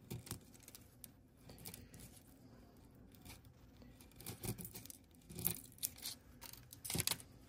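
Flat razor blade scraping and scratching at a slab of sedimentary rock to expose a fossil fish, in irregular strokes; the loudest scrapes come about four and a half, five and a half and seven seconds in.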